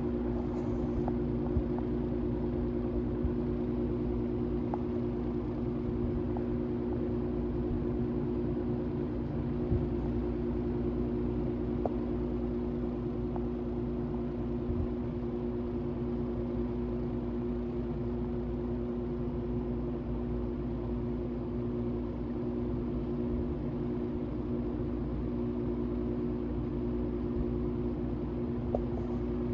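Vintage General Electric box fan running steadily: its motor hums with several steady tones over a low rush of moving air.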